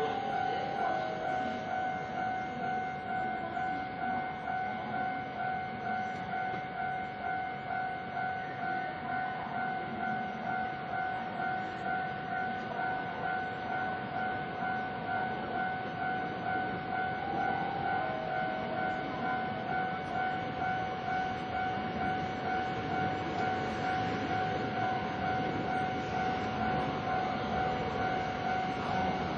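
Japanese level-crossing warning bell ringing steadily in a rapid, evenly repeating beat, over a steady rushing noise.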